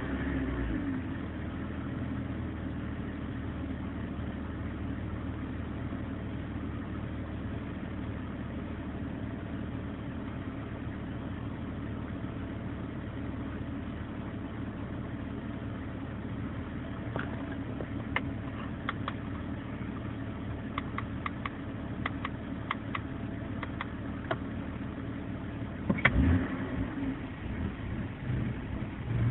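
BMW E46 325i inline-six idling roughly, settling just after a falling rev. It makes a series of irregular sharp pops in the second half and one short louder burst near the end, the popping and rough idle that point to a running fault.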